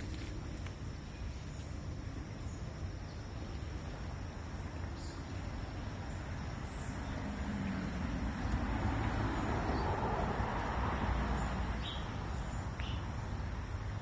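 Shallow forest creek flowing, a steady rushing hiss over a low rumble that swells for a few seconds mid-way. A couple of faint, short high chirps come near the end.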